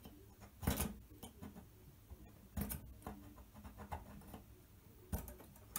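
Marker pen scratching short marks onto a metal extrusion: three brief strokes, about a second in, midway and near the end, with small ticks from handling the part between them.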